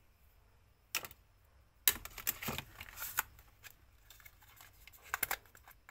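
Cardboard packaging being handled by hand: a single tap about a second in, then a quick run of clicks and rustles, and a few more clicks near the end.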